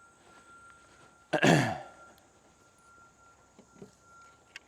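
A man clears his throat once, about a second and a half in: a short, loud sound falling in pitch. Otherwise it is quiet, with a faint steady high tone and a few light clicks near the end.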